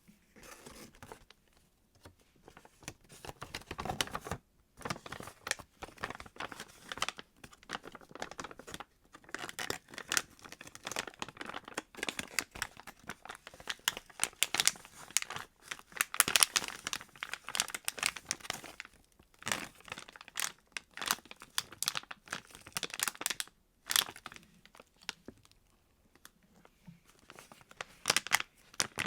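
Squishy toys being squeezed and handled close to the microphone: crinkling and crackling in irregular bursts, with short pauses between them.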